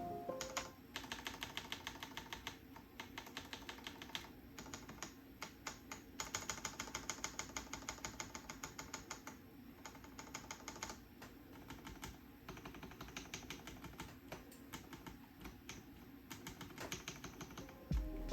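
Stabilized keys on an Akko 5075S mechanical keyboard, still on their stock plate-mounted stabilizers with POM housings and POM and TPU stems, being tapped in fast runs of about five or six clacks a second with brief pauses between runs. It is a sound test of the stabilizers as they come from the factory, before modding.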